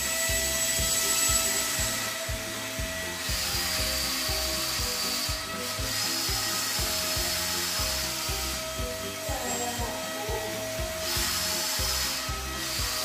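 Electric motor of a wall-climbing remote-control toy car whirring as it drives across the floor, starting and stopping several times. Background music with a steady beat plays under it.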